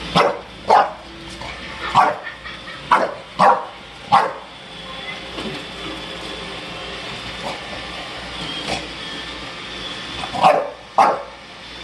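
A dog barking in short, sharp barks: about six in the first four seconds, then a lull with a few faint ones, and two more near the end. The barks sound over the steady running noise of a Roomba robot vacuum.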